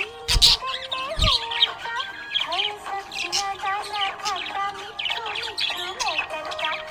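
Budgerigars chirping and twittering in quick bursts over instrumental music with a gliding melody line. Two deep beats come about half a second and a little over a second in.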